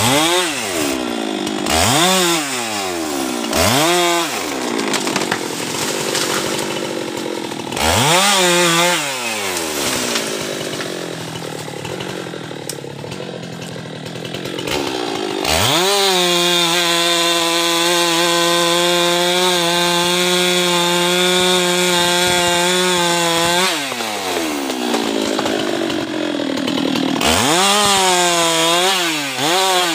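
Husqvarna two-stroke chainsaw revving up and down in short blips, then cutting through a jambu tree limb, its engine pulled down lower and rougher under load. It then holds a steady high speed for several seconds before revving in blips again near the end.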